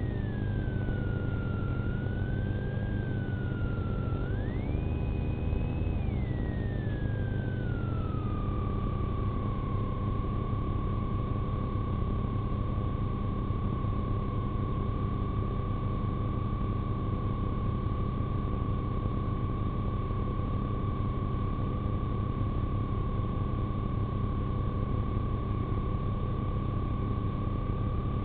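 A siren's tone gliding down, rising sharply about four seconds in, falling away over the next few seconds and then holding at one steady pitch, over the steady low rumble of the police car's running and road noise.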